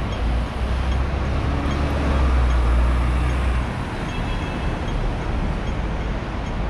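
Street traffic heard from aboard a Hong Kong double-decker tram: a double-decker bus passes close alongside, its diesel engine a deep rumble that drops away about three and a half seconds in, over steady traffic noise.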